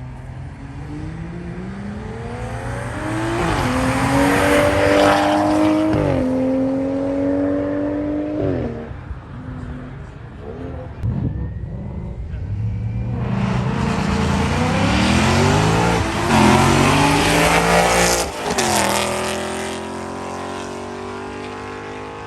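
High-performance car engines accelerating hard through the gears, the pitch climbing and then dropping at each upshift. One run lasts to about 9 s, and a second builds from about 11 s with more shifts.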